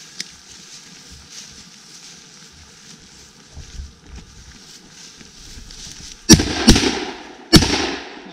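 Shotgun fired: three loud, sharp reports within about a second and a half, a little past six seconds in, each trailing off in echo.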